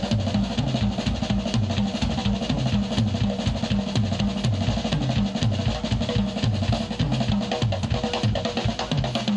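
Drum kit played live in a solo: fast, dense strokes across drums and cymbals over a steady, repeating low drum pattern.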